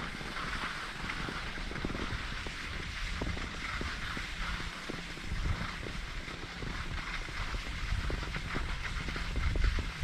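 Skis sliding and scraping over snow in a steady hiss, with wind rumbling on a helmet-mounted GoPro's microphone; the rumble swells near the end.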